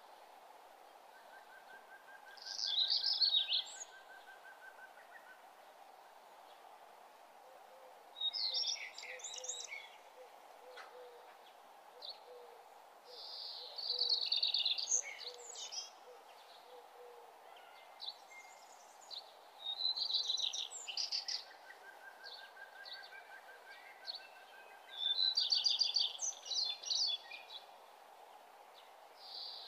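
A songbird singing short, rapid chirping phrases about every five to six seconds, over faint steady background noise.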